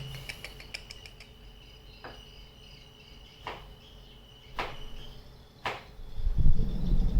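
A steady high-pitched insect trill with four sharp knocks about a second apart. From about six seconds in, a louder low rumble takes over.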